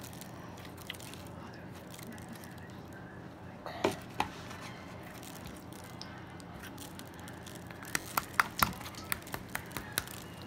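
Clear-glue and borax slime being kneaded and stretched by hand, letting out sharp wet pops and clicks: two about four seconds in, then a quick run of about eight near the end.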